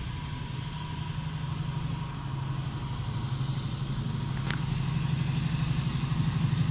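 Class 70 diesel-electric freight locomotive's GE PowerHaul V16 engine drumming with a low steady note as it approaches at slow speed, growing gradually louder.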